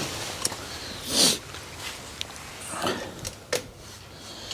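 Quiet handling noises of someone gluing small plastic packers in place: a few light clicks and taps, with a short breathy rush about a second in and another near three seconds.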